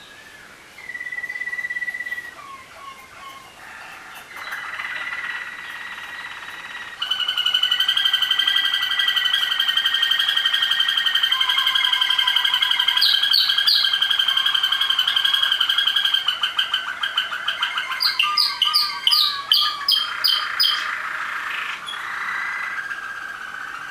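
Waterslager (Malinois) song canaries singing together as a stam, several voices overlapping in long held whistled tones and fast trills. The song thickens and grows loud about a third of the way in, with a run of quick repeated notes near the end.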